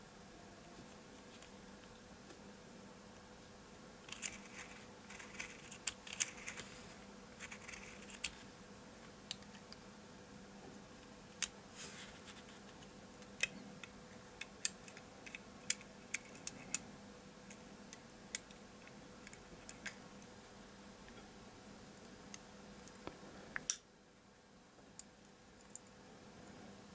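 Small irregular clicks, taps and light rustling of the plastic parts of a Sony DSC-W830 lens barrel being handled and worked with metal tweezers, over a faint steady hum. One louder click comes near the end.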